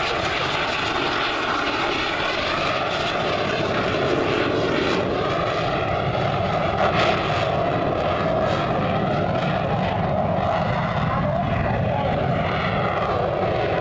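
Aermacchi MB-339 jet trainer's single turbojet engine, heard as a continuous loud jet noise as the aircraft makes a low pass and climbs away. A whine within the noise slides slowly in pitch as it passes.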